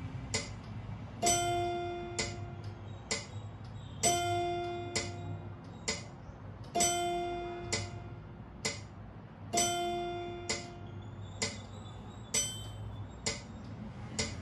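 Electronic keyboard playing a chime exercise in 3/4 time against a metronome. A single held note, F, is struck on the first beat of each bar four times, and the metronome ticks about once a second. After the fourth note only the metronome ticks go on.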